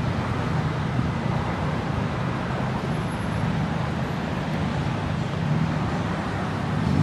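Road traffic: cars, pickup trucks and a semi tractor-trailer passing, with steady tyre and engine noise.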